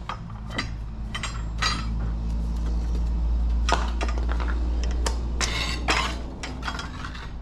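Metal clinks and knocks as the Jaguar's 4.2 L V8 is lowered back onto its replacement engine mounts, over a steady low hum that swells through the middle and eases off near the end.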